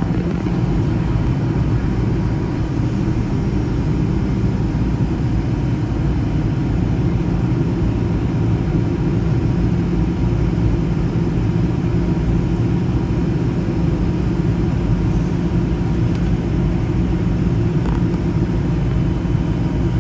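Boeing 737 cabin noise: engines and rushing air making a steady, even drone, with a faint constant tone above it.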